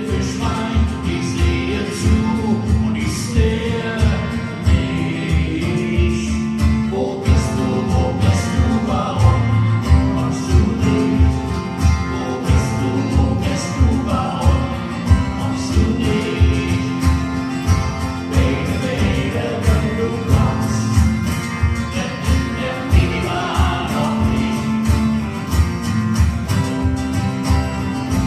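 Live performance of a song: a man singing with guitar accompaniment over a steady beat.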